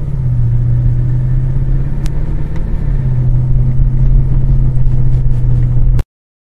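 Audi B7 S4's 4.2-litre V8 droning steadily at cruise, heard from inside the cabin, its low engine note shifting slightly in pitch; the sound cuts off abruptly about six seconds in.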